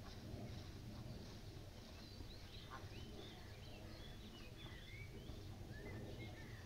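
Faint chirps and twitters of small birds: many short, high whistled notes, some rising or falling, starting about a second and a half in, over a steady low background rumble.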